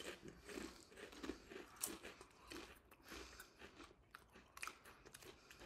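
Faint chewing and crunching of Joe Chips jalapeño potato chips, with irregular crisp crunches between steadier chewing.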